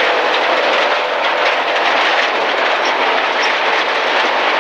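Rally First MG ZR 1.4 heard from inside the cabin at speed on a gravel stage: a loud steady roar of tyres on loose gravel with stones rattling against the underbody, the engine running beneath it.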